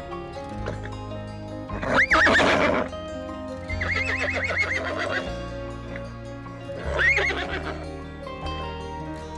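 A horse whinnying three times over background music with a steady bass line: a short call about two seconds in, a long quavering whinny around four seconds in, and another short call near seven seconds.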